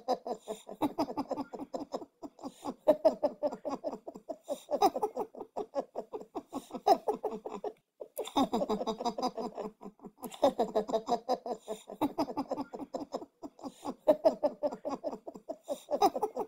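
Cat purring close to the microphone: a fast, rough pulsing that comes in stretches of a second or two with brief breaks between breaths.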